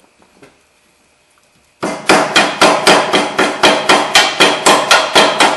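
A hand hammer striking steel at the front steering knuckle in quick, ringing blows, about four a second, starting a little under two seconds in. The blows are driving out a rust-seized upper ball joint on a 2000 Mercury Grand Marquis.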